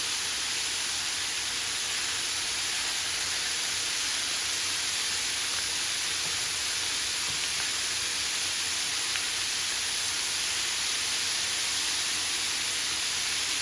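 Flour-coated chicken pieces deep-frying in hot grease: a steady, even sizzle that holds without change.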